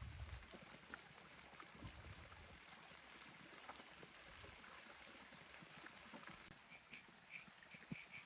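Faint animal calls: a short high chirp repeated about three times a second, joined near the end by a lower, choppier chirping, with a few low thuds.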